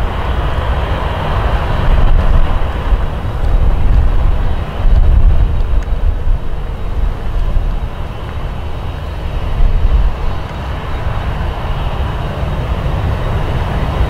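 Jet engines of a taxiing rear-engined business jet running at low power: a steady rush with a faint whine and an uneven low rumble beneath.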